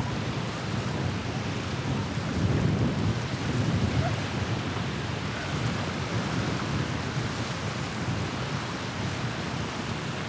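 Wind buffeting the microphone: an uneven low rumble over a steady hiss, swelling about two to four seconds in.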